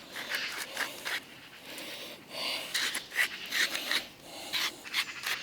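A hand spice grinder being twisted over the steaks, its grinding mechanism rasping in a run of short, uneven strokes.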